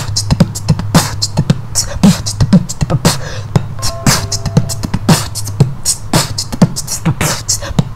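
Human beatboxing: mouth-made kick-drum thumps and sharp hi-hat and snare hits in a quick, driving rhythm, with a short pitched note about halfway through.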